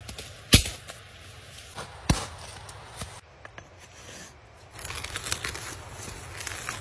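Two sharp thumps, about half a second and two seconds in, then a hand-turned T-handle wood auger boring into the end grain of a log: a dry, scratchy crunching as the spiral bit cuts and lifts shavings through the second half.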